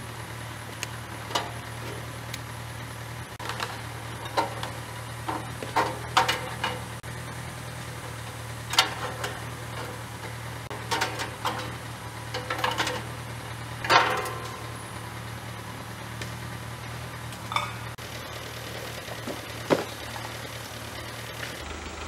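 Metal clanks and clicks as the blade-wheel covers of a Wood-Mizer LT15 band sawmill are opened and the band blade is handled during a blade change, scattered knocks over a steady low hum.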